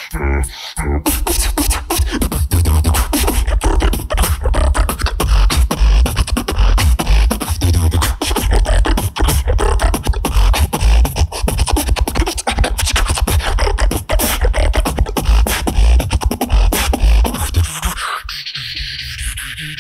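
Solo beatboxing: a dense, rapid stream of vocal snares and clicks over heavy bass kicks. Near the end it gives way to a steadier held sound.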